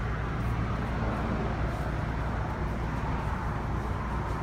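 Chevrolet 454 SS pickup's 454 big-block V8 idling steadily, a low, even rumble.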